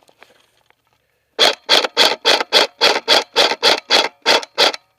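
KWA M4 airsoft rifle firing about fourteen shots in quick, even succession, about four a second, starting about a second and a half in.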